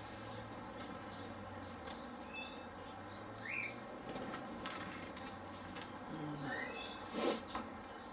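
Wing flaps of a turquoisine parakeet flying, mixed with many short, high chirps from aviary birds, often in quick pairs.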